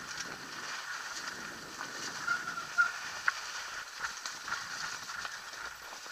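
Mountain bike riding downhill over snow: a steady hiss of tyres on snow, with scattered clicks and knocks from the bike and a short squeak about two and a half seconds in.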